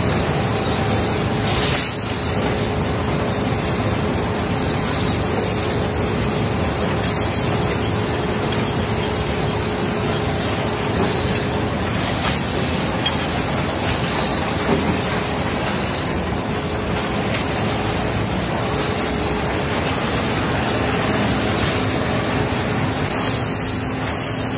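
Glass-recycling plant machinery running: conveyors moving broken glass cullet, a dense, steady, even noise with faint steady hums beneath it.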